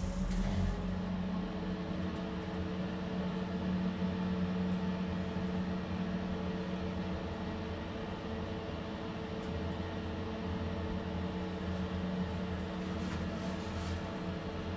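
Holeless hydraulic elevator travelling: a steady low hum from its hydraulic drive, with an even hiss over it.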